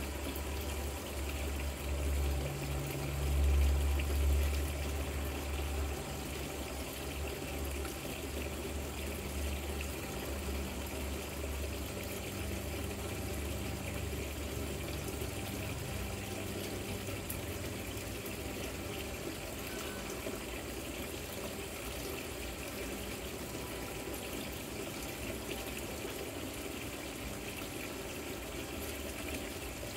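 Rock waterfall fountain trickling and splashing steadily. A low rumble swells about three to four seconds in and fades away by around sixteen seconds.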